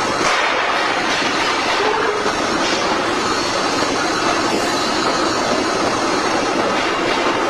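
Heavy industrial machinery running steadily: a loud, continuous mechanical din with no breaks or rhythm.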